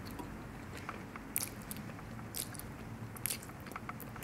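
A person chewing and slurping a mouthful of spaghetti, with a few short wet clicks.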